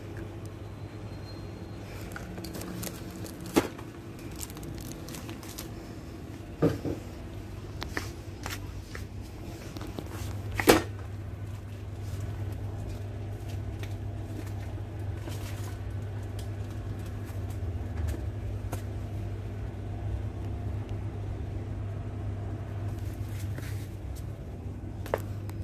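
Steady low hum of a shop's room tone, with a few sharp clicks and knocks from handling plastic-windowed toy packaging and the phone. The loudest knock comes about ten seconds in.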